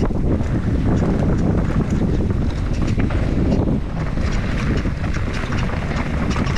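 Wind rushing over the microphone and knobby tyres rolling over a dirt trail as an enduro mountain bike descends at speed, with frequent clicks and knocks from the bike over the rough ground.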